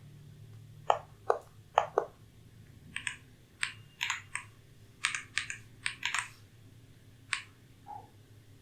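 Keystrokes on an Ajazz AK980 mechanical keyboard with hot-swappable switches: separate clicks at an uneven pace, with a few quick runs of presses and a pause near the end.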